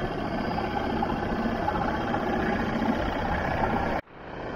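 Boat outboard motor running steadily at low speed. Its sound cuts out suddenly about four seconds in and comes back within half a second.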